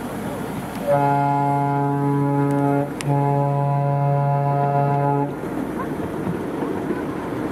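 The miniature railroad's locomotive whistle sounds two long, steady blasts, the first starting about a second in and the second following after a brief break and ending past the middle. The ride's rumble runs underneath.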